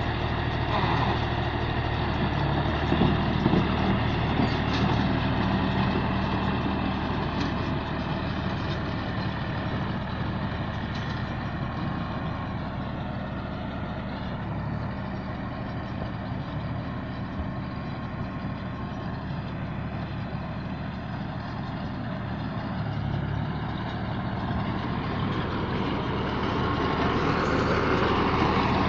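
Engine of a rice baler machine running steadily, getting louder near the end.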